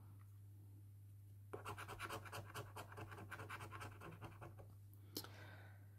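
A coin scratching the coating off a scratch-off lottery ticket. About one and a half seconds in there are about three seconds of faint, rapid rasping strokes, then a single small click near the end.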